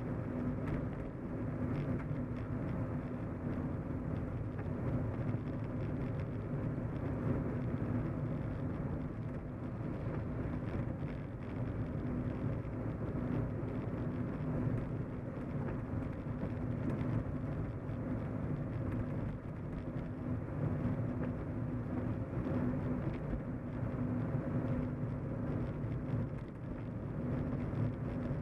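Car driving, heard from inside the cabin: steady engine and tyre noise with a low drone.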